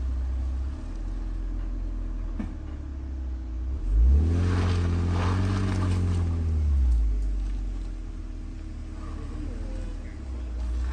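Porsche Cayenne SUV engine running steadily on a steep dirt hill climb. It revs up about four seconds in and drops back about three seconds later.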